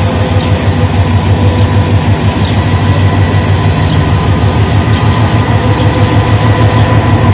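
Bangladesh Railway diesel-electric locomotive running with a steady low engine drone and a thin high whine as it rolls slowly into the platform.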